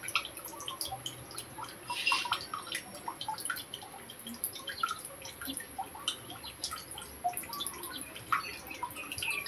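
Sticky glutinous rice in thick syrup being stirred and folded with a metal spoon in a metal pan. It makes irregular wet, sticky squelches and small clicks of the spoon against the pan.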